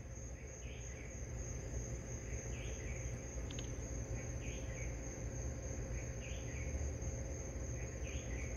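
Night insects, crickets, giving a steady high trill, with a short call repeating about every two seconds over a low, steady rumble.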